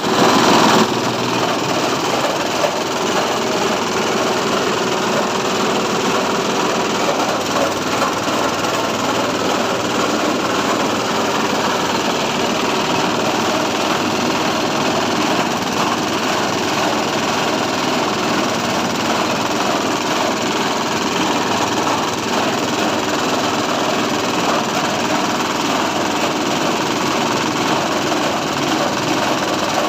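SM-30 multipurpose chopper-grinder for livestock feed running steadily with a continuous loud mechanical noise, a little louder for the first second.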